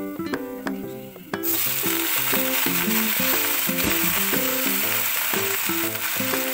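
Spinach leaves hitting hot oil and garlic in a wok: loud, steady sizzling starts suddenly about a second and a half in as the greens go in and are turned with a spatula. Background music with a steady run of notes plays throughout.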